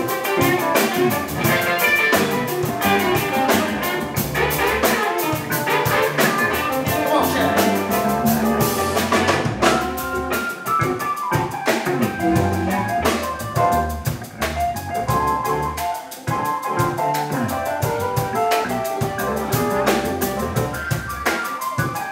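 Live soul/blues/funk band playing an instrumental passage with no vocals: electric bass, drum kit, electric guitar and keyboard.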